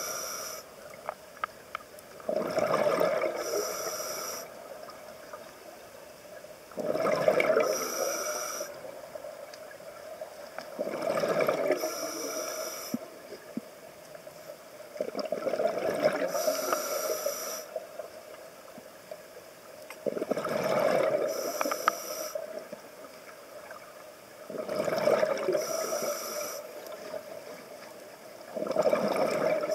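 Scuba diver breathing through a regulator underwater: a burst of bubbling and hiss roughly every four seconds, about seven breaths in all, over a steady faint hum.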